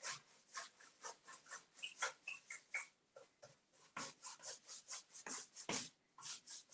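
Paintbrush bristles rasping back and forth over a wooden dresser top while spreading black chalk paint, about four strokes a second, pausing briefly around three seconds in. A few short high squeaks come about two seconds in.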